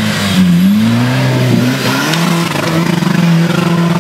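Modified Suzuki Samurai off-road trial vehicle's engine revving under load on a muddy slope: the revs dip and rise in the first two seconds, then hold steady before falling off at the end.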